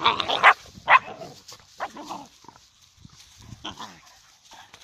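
Two dogs, an adult and a puppy, play-fighting and growling in rough, short bursts. The loudest growls come in the first second, with quieter grumbles about 2 and 3.7 seconds in.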